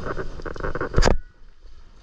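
Water lapping and sloshing against a kayak's hull, with one sharp knock about a second in.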